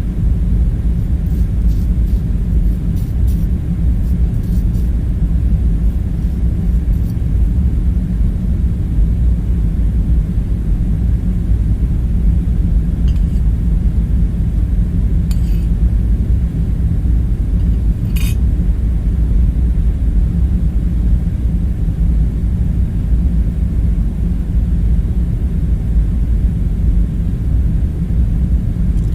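Steady low rumbling hum, with a few light clinks over it: several close together near the start, then one every few seconds around the middle.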